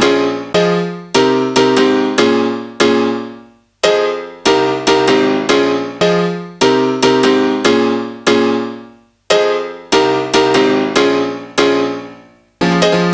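Background piano music: sustained chords struck one after another and left to ring, the phrase dying away and starting again three times.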